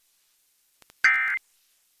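Emergency Alert System SAME digital data burst: a short, loud screech of rapidly switching data tones about a second in, lasting about a third of a second. It is the first of three identical bursts a second apart, short enough to be the end-of-message code that closes an alert.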